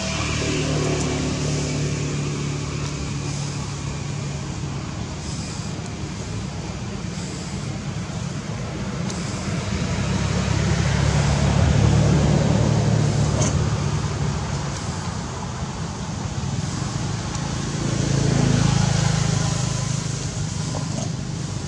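Motor-vehicle traffic: a steady low engine hum that swells twice as vehicles pass, once about eleven to thirteen seconds in and again near the end.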